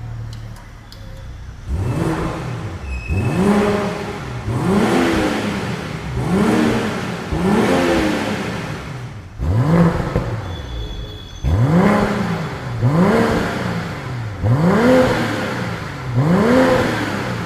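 Turbocharged 3-litre inline-six car engine being blipped at a standstill, about ten short revs in a row, each rising in pitch and falling back, one every one and a half to two seconds.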